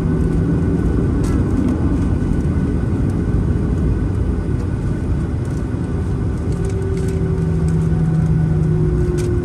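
Boeing 737-900ER cabin noise from a window seat: a steady rumble from the CFM56-7B jet engines and airflow. A low hum rises and fades within it.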